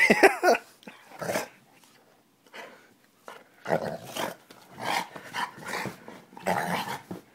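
Akita-husky puppy growling in play while chewing on a hand: a string of short growls and grumbles, with a pause of about two seconds after the first few.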